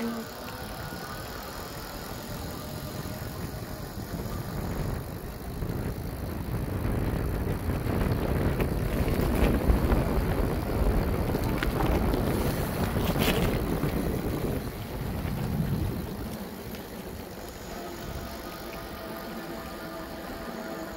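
Bicycle being ridden on an asphalt road: tyre rumble and wind buffeting the microphone. The noise builds to its loudest about midway and eases off a few seconds before the end.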